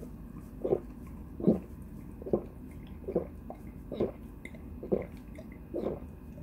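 A person gulping a sparkling mango drink from a glass, swallowing in a steady rhythm of about seven gulps, a little under one a second.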